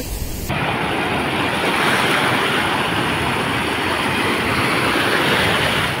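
Steady rush of ocean surf breaking and washing on a sandy beach, getting louder about half a second in.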